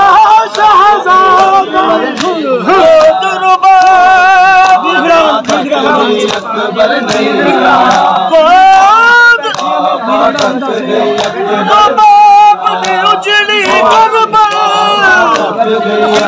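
A crowd of men chanting a noha lament together, many loud voices overlapping.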